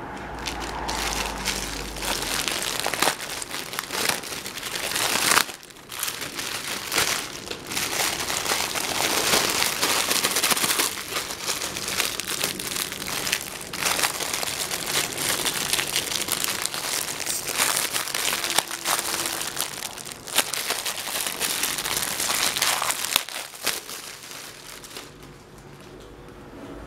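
Plastic packaging being handled: a grey poly mailer envelope torn open and the clear plastic bag inside crinkled and crackled by hand, in uneven bursts. It dies down near the end as the t-shirt is lifted out.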